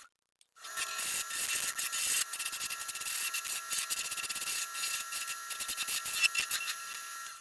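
A lathe spins an acrylic pen-blank offcut at about 1400 rpm while a turning tool cuts it. There is a steady motor whine under an uneven, hissing scrape full of small ticks. It starts about half a second in, after a moment of dead silence.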